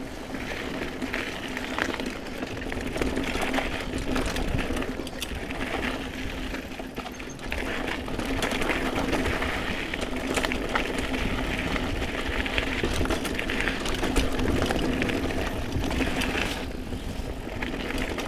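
Mountain bike rolling over a dirt singletrack trail: tyres rolling on dirt and the bike rattling over bumps, with scattered sharp clicks and a steady buzz underneath.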